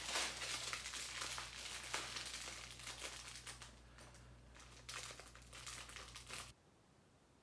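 Crinkling and crackling of small plastic bags of diamond-painting drills being handled, dense at first, then in two short bursts. It cuts off abruptly along with the background hum near the end.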